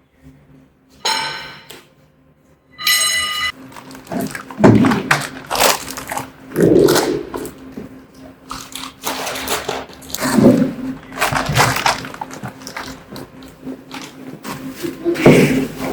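Steel sawmill bed parts being handled during assembly: two short metallic rings about a second and three seconds in, then a run of irregular knocks, thunks and clanks.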